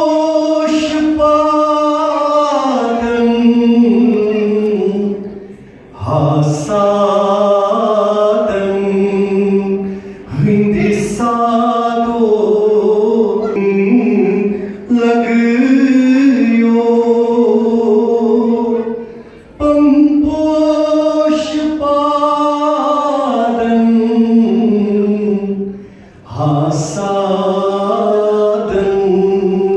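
A man singing a slow melody into a microphone, with long held notes that glide between pitches, in phrases of about four to six seconds separated by brief breaks for breath.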